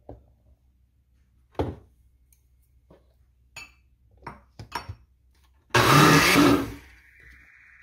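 A few light knocks and clinks on a blender jar as a cup of wheat flour is tipped in, then the blender switches on and runs loudly for about a second, easing into a steady high whine as it keeps mixing the cake batter.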